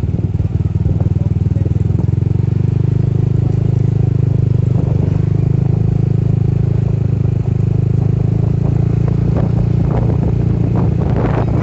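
Small motorcycle engine running steadily at low speed, close by, with rattling clatter about ten seconds in.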